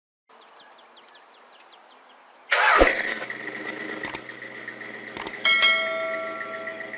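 Chevy 305 small-block V8 on an engine stand starting up suddenly about two and a half seconds in, then running steadily with a few sharp clicks.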